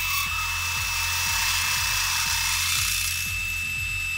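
Metal lathe drilling: a twist drill boring into a spinning metal workpiece, a steady cutting hiss with a high whine, over background music with a beat.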